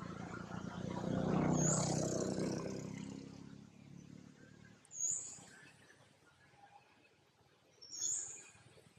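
Outdoor ambience: a low hum swells to a peak and fades away over the first four seconds. Short high chirps sound at the start and twice more, about five and eight seconds in.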